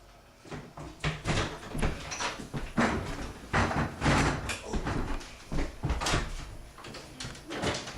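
A closet's sliding door being handled, with a rapid, irregular string of knocks, bumps and rustling as people shuffle about inside.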